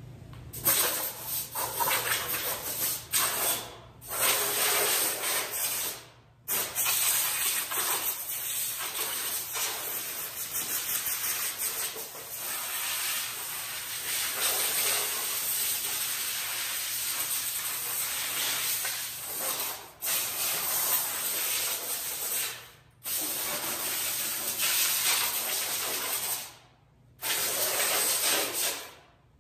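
Compressed-air blow gun blowing sanding dust off a car frame, in about six long bursts of a few seconds each with brief breaks between; the longest runs over ten seconds.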